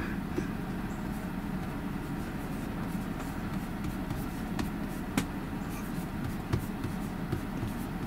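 Fingertip tapping and sliding on the glass touchscreen of a Tesla Model Y while drawing, giving a few faint taps, over a steady low background rumble.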